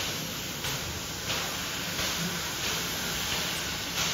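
Steam locomotive moving off slowly, its exhaust hissing in regular chuffs about every two-thirds of a second, with steam blowing from the open cylinder drain cocks.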